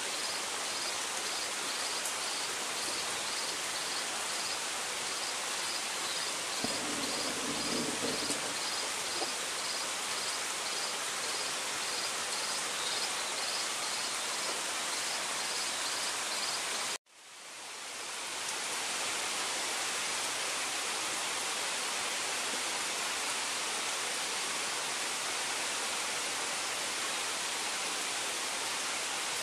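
Steady rain falling on forest foliage, a continuous hiss. Over the first half, a high chirp repeats about twice a second, then stops; about two-thirds through, the sound drops out briefly before the rain fades back in.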